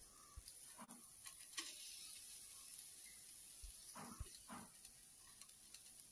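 Near silence: faint hiss, with a few soft knocks about a second and a half in and around four seconds in, as grated coconut is tipped into a dry non-stick pan of roasting spices.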